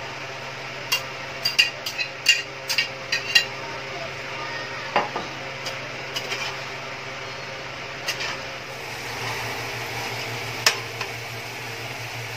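A bowl and a spatula clinking and knocking against a frying pan as fried tofu and pork are tipped in and stirred. There are about ten sharp knocks in the first few seconds and a few scattered later, over a steady low hum.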